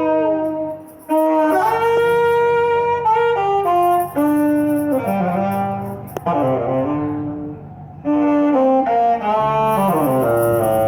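Street brass band's horns, saxophones and brass, playing a tune in long held notes and falling phrases, with short breaks about a second in and again around eight seconds in.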